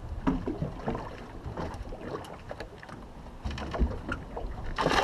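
Small boat on the water: water slapping at the hull, light scattered knocks and taps, and a low wind rumble on the microphone, with a brief rush of noise near the end.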